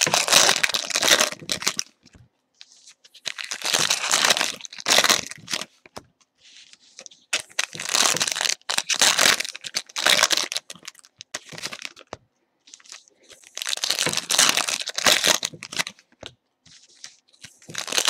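Foil trading-card pack wrappers being torn open and crinkled by hand. The sound comes in about five crackling bursts of one to three seconds each, with short pauses between them.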